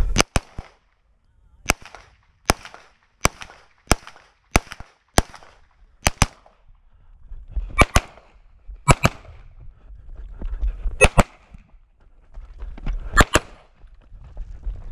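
9mm major Open-class competition pistol (SPS Vista Star) firing a stage string. Single shots come about 0.7 s apart, then several quick double-taps with short pauses between.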